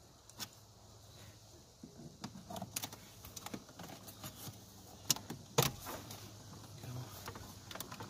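Plastic clicks, creaks and knocks from a 2006 Ford Focus's dashboard radio trim bezel as it is tugged and pried at by hand to pop it off, a scatter of sharp clicks with the loudest knocks a little past halfway.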